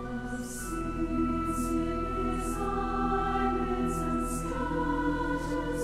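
Women's voices of a large choir singing a hymn over sustained pipe organ chords. The voices enter about half a second in, with crisp 's' consonants recurring every second or so.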